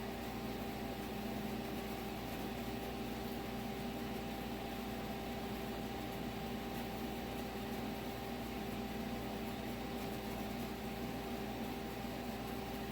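A machine running steadily: an even whirring hum with a constant whine and no strikes or changes.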